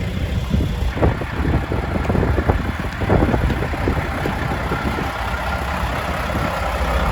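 Mack snowplow truck's diesel engine idling, with its cooling fan running hard. A run of short knocks and scrapes comes about a second in and dies away after a few seconds.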